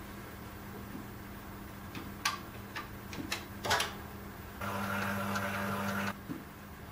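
Wurlitzer One More Time CD jukebox being tried after a laser replacement: several sharp clicks as its selection buttons are pressed, then its CD mechanism runs with a steady whir for about a second and a half and stops abruptly, over a low steady hum from the machine.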